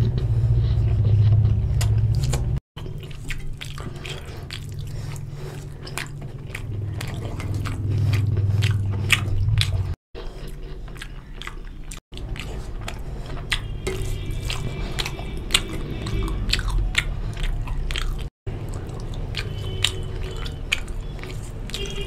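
Close-up chewing of a mouthful of chicken curry and rice, with many quick wet mouth clicks and smacks, along with the squishing of fingers mixing rice into curry on a steel plate. The sound is broken by four brief silent gaps.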